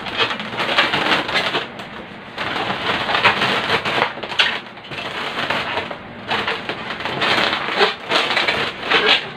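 Twisted latex modelling balloons rubbing and squeaking against each other as a balloon flower bouquet is handled and arranged. The sound comes in several stretches of dense squeaks with short pauses between them.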